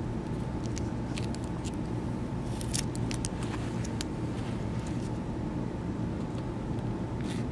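Clear adhesive tape peeled back off an aluminum beam over a freshly bonded strain gauge, giving short crackles and ticks, thickest about two and a half to three seconds in. A steady low hum runs underneath.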